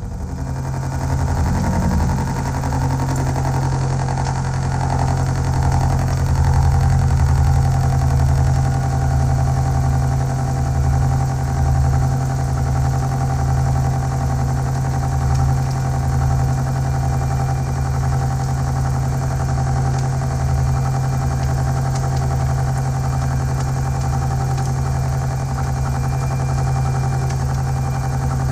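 1941 Bridgeport J-head milling machine running a face mill across a steel bar, a steady machine hum under the noise of the cut.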